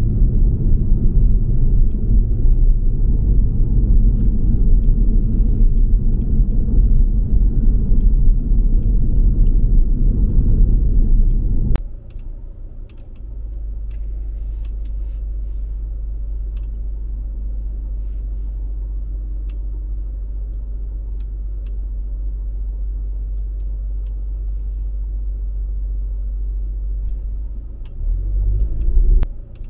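Car driving: a loud, steady low rumble of road noise cuts off abruptly with a click about twelve seconds in, leaving a quieter steady low hum. Near the end comes a short rising whine, then another click.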